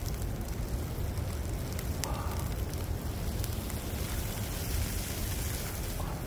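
Campfire crackling under a steady rush of wind rumbling on the microphone, with a sharper pop about two seconds in.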